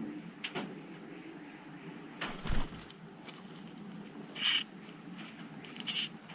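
Eastern phoebe nest sounds: a brief flutter or rustle about two and a half seconds in, then short high chirps near four and a half and six seconds in, over a low steady hum.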